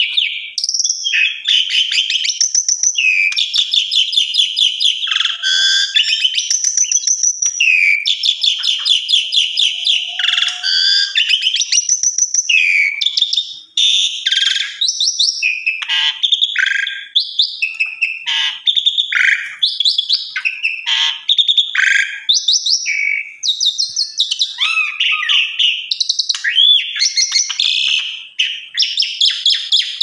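Asian pied myna (jalak suren) singing a long, varied song of rapid chattering trills and whistled notes, running through its repertoire, with a brief break about halfway.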